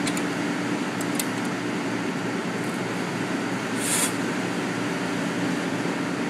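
Nieco automatic conveyor broiler running: a steady fan hum with a few light clicks from the wire belt feeder, and a short hiss about four seconds in.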